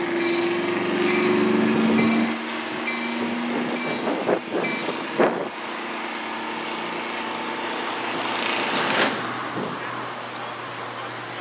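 Railroad grade-crossing warning bell dinging a little faster than once a second for the first few seconds, over a steady low two-note hum. A few sharp knocks come around four to five seconds in and another near nine seconds.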